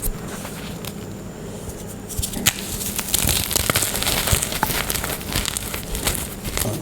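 Glittery gym chalk being crumbled and crushed: a quieter first couple of seconds, then a dense run of crisp crackles and crunches.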